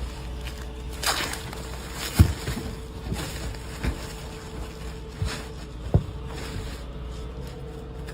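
Five or so irregular sharp knocks and thumps, the second loudest, over a steady low hum.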